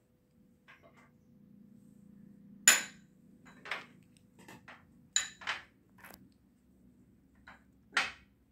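A metal spoon clinking and scraping against a ceramic bowl as a chopped vegetable filling is stirred. There are a handful of irregular sharp clinks with a short bright ring, the loudest about two and a half seconds in and again near the end.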